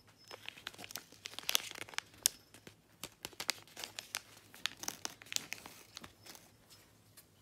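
Light crinkling of packaging being handled: a foil tea sachet and plastic wrapping rustling in a quick, irregular run of small crackles that thins out near the end.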